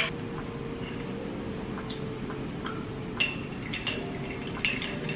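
A few faint clinks of a metal straw against a glass jar, over a steady low hum.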